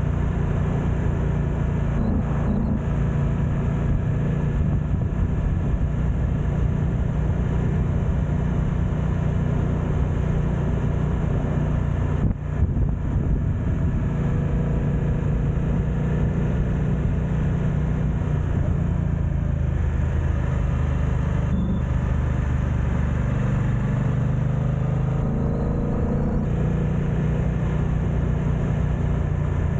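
BMW F900XR's parallel-twin engine running steadily under way, a low, even drone whose pitch shifts a little as the revs change partway through and again later on, with a short knock about twelve seconds in. Wind noise on the bike-mounted camera's microphone sits under it.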